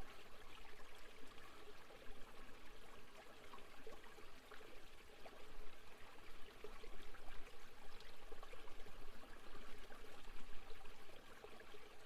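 Waterfall ambience: a steady rush of falling, splashing water with small trickling flickers.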